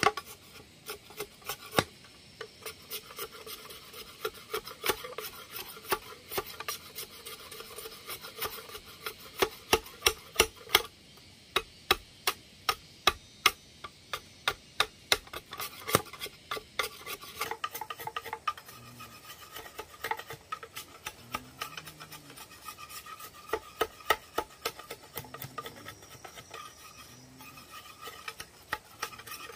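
Hooked machete blade scraping and shaving the green outer skin off a bamboo pole: a long run of sharp, rasping strokes, quickest in the middle.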